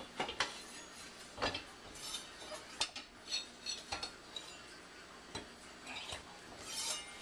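Kitchen utensils and cookware handled on a counter: a string of irregular metallic clinks and knocks, about a dozen in all.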